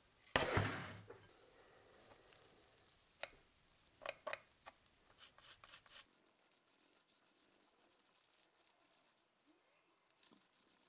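Toothbrush scrubbing a Siemens A40 phone's plastic housing parts in a dish of soapy water, a light scratchy swishing, preceded by a loud burst of noise about a third of a second in and a few sharp clicks of hard plastic around three and four seconds in.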